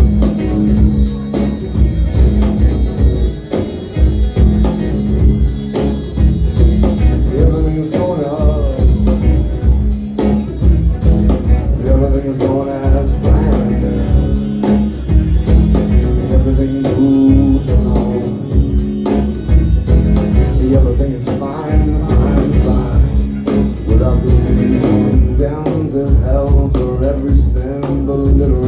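Live band music: a drum kit keeping a steady beat under an upright bass line and guitar, with no clear lyrics.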